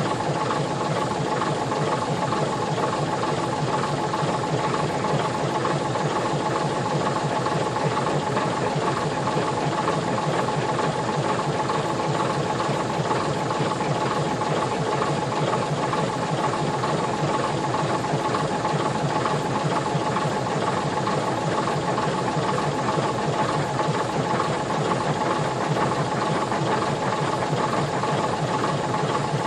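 Ivatt Class 2MT 2-6-2T steam tank locomotive 41241 working a train up the line: a steady, fast, even run of exhaust beats with a steady note running through it.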